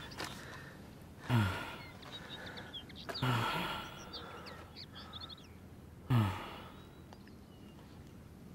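A man's three heavy, anguished sighs, about two seconds apart, each a breathy exhalation whose voice drops in pitch. Small birds chirp faintly behind them.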